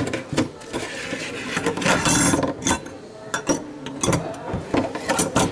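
A run of irregular mechanical clicks, knocks and rattles of something being handled, with a longer scraping, rattling stretch about two seconds in.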